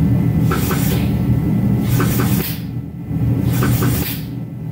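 Steady low rumble of shop machinery, likely the pit jack, as a locomotive pilot-truck wheelset is raised into its pedestal. Short hissing puffs come every second or two.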